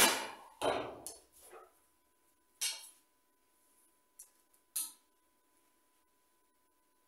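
A 40 lb Bodnik longbow shot: the string is loosed with a sharp thump, and about two-thirds of a second later the wooden arrow strikes the target 27 m away, ringing briefly in the hall. A few lighter clacks follow as the next Port Orford cedar arrow is taken up and nocked.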